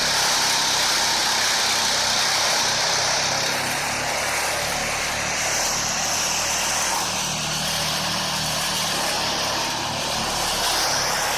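Truck-mounted Flisbjørn wood chipper running steadily, a continuous mechanical noise with a strong high hiss that fades and returns.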